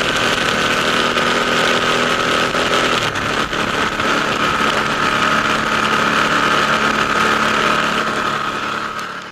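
Ducati motorcycle engine running steadily and loudly, with a thin steady whine above it; the engine's pitch shifts slightly about three seconds in.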